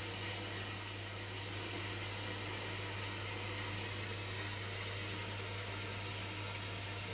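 Hoover washing machine running on its short Refresh cycle: a steady hum with an even hiss, with no separate knocks and no change in speed.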